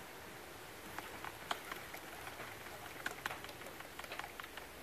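Scattered light clicks and taps at an uneven pace over a steady faint hiss, starting about a second in.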